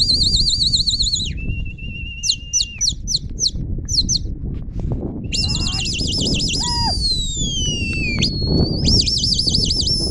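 High whistling, several whistles overlapping: fast-warbling trilled whistles, a few short upward chirps, and long whistles that slide smoothly down in pitch, over a constant low rumble.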